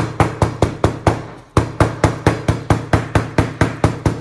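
A meat-tenderizer mallet with a studded metal head pounding fresh geranium flowers through a paper towel on a tabletop, pressing them to print onto paper. Rapid, even strikes at about five a second, with a brief pause about a second and a half in.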